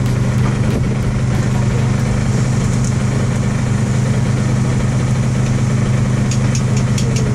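A running motor's steady low hum, with a few faint sharp ticks near the end.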